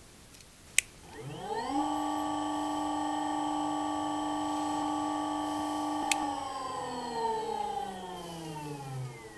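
Small AC motor run by an Invertek Optidrive E2 variable speed drive on a fast 1-second acceleration ramp: a click, then the motor's electrical whine rises quickly in pitch over about a second as it speeds up to 50 Hz and holds steady for about four seconds. After a second click the whine glides down in pitch as the motor decelerates.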